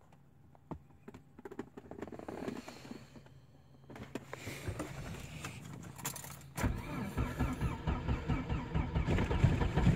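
Volvo 945's turbocharged 16-valve redblock four-cylinder on E85 being started cold at 26°F: the starter cranks, pauses, cranks again, and the engine catches about two-thirds of the way through and keeps running, its low pulsing growing louder. The cold-start fuel map is untuned for this temperature.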